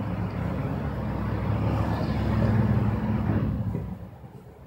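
A road vehicle passing by, its low engine and road hum growing to its loudest about two and a half seconds in, then fading away.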